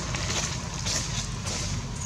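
Faint crackling of dry leaves a couple of times over a steady low rumble.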